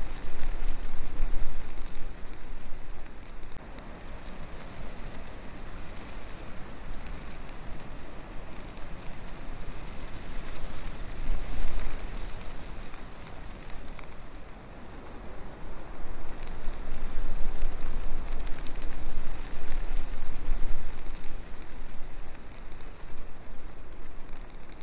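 Wind rushing over the microphone of a flying quadcopter: a loud, steady hiss with a low rumble that swells and eases in gusts.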